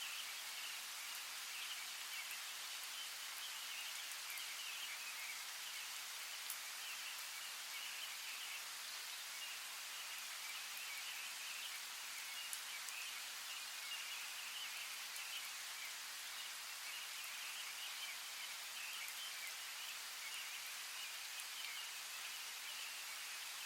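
Forest ambience: a steady hiss of water with a continuous high chirring chorus over it and a few faint ticks.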